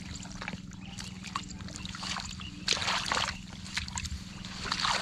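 Hands sloshing and splashing in shallow muddy water while groping for catfish, with short splashy bursts about three seconds in and again near the end. A steady low hum runs underneath.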